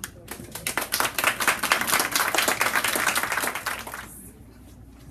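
Audience clapping: a dense patter of claps that builds over the first second, then stops suddenly about four seconds in.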